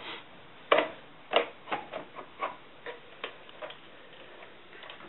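A run of sharp plastic clicks, about two to three a second, from a carousel slide projector's lens and focusing knob as the lens is slid back into its holder. The second click is the loudest, and the clicks fade out toward the end.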